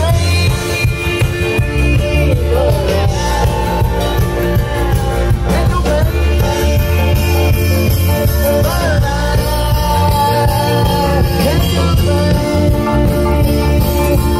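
A live band playing with a lead singer: a sung melody over a steady bass line, continuous and loud.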